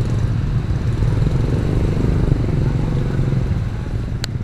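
Many small motorcycles running and moving off together in a steady low rumble of engines. A brief sharp tick near the end.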